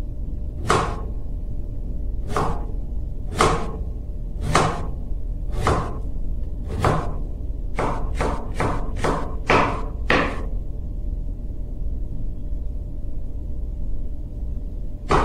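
Kitchen knife slicing fresh ginger root, each cut landing on the cutting board with a sharp knock. Single cuts come about a second apart, then a quicker run of about seven cuts near the middle, then the cutting pauses, over a steady low hum.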